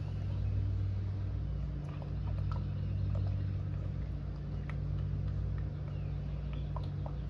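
A steady low mechanical hum, with faint scattered clicks and taps.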